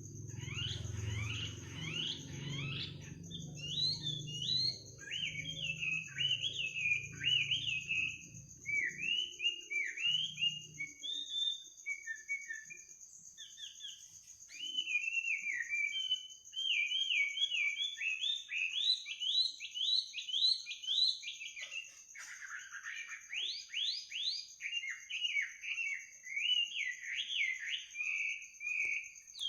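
A bird singing a long, varied song of quick chirps and trills at night, with a steady high-pitched insect drone beneath it. A low hum stops about ten seconds in.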